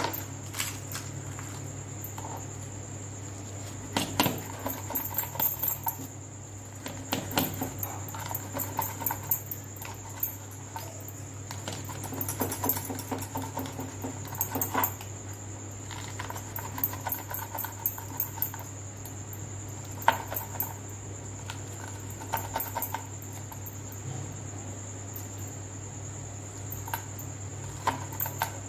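Serrated knife sawing through fried pooris on a cutting board: clusters of crackling, scraping and light taps every few seconds as the bread is cut and the pieces are moved.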